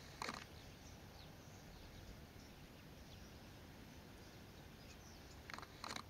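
Near silence: faint open-air ambience, broken by a few short sharp clicks about a quarter of a second in and again near the end.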